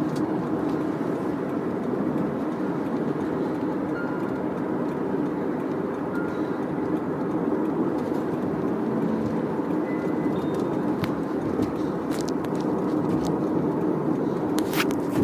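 Steady road and engine noise heard from inside a moving car, an even rumble without change, with a couple of faint clicks near the end.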